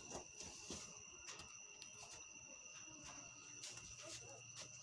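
Near silence: a faint, steady high-pitched tone over soft rustling and handling noise.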